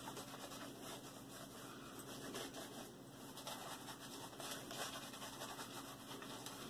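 Faint scratchy swishing of a shaving brush working shaving-cream lather onto a wet leg, in small irregular strokes.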